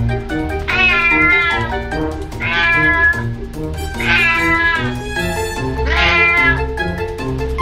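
A cat meowing four times, long drawn-out meows that rise and fall in pitch, about one every second and a half, over background music with a steady bass line.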